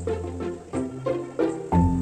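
Background instrumental music with a steady beat, a bass line and a melody of short, quickly changing notes.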